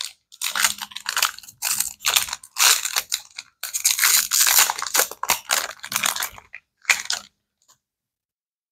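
Foil trading-card booster pack being torn open and crinkled by hand: a run of irregular crackling rustles that stops shortly before the end.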